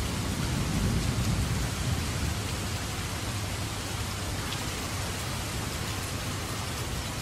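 Steady rain sound effect, an even hiss of falling rain. A low rumble of thunder swells about a second in and dies away by about the third second.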